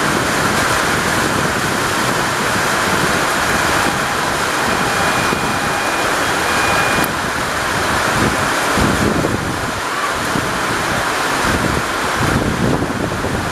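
Wind rushing over the microphone: a loud, steady noise that swells and shifts unevenly, with no clear train sound in it.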